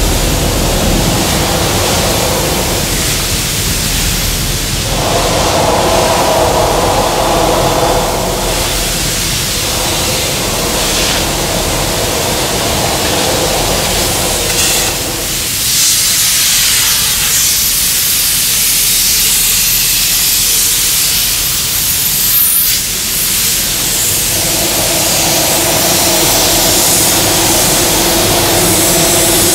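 Loud, continuous rushing hiss with a mechanical drone of several steady tones over it. The drone fades out through the middle, where the hiss carries alone, and comes back near the end.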